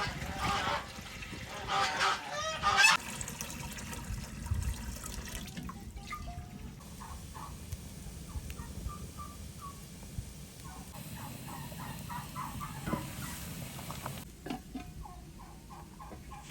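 Birds calling: a few loud calls in the first three seconds, then a long run of short, quickly repeated honking notes.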